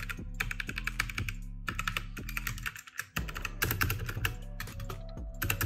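Rapid typing on a Logitech G512 mechanical keyboard with tactile brown switches: a dense run of key clicks, with a brief pause a little past halfway.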